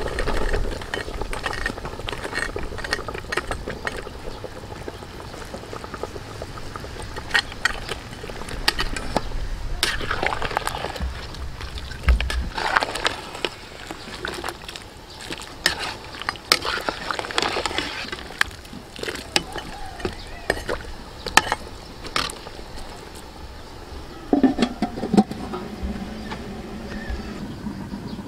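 Cut vegetables tipped from a woven basket into a large aluminium pot of simmering oxtail, then a metal ladle stirring and knocking against the pot, with scattered sharp clicks.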